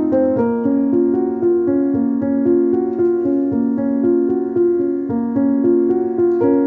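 Background music: a keyboard melody of evenly paced notes.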